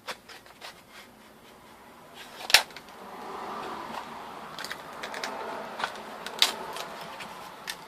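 Light plastic clicks and taps from a car side mirror's glass and housing being handled and pried apart, with one sharp snap about two and a half seconds in. A faint steady noise starts about three seconds in.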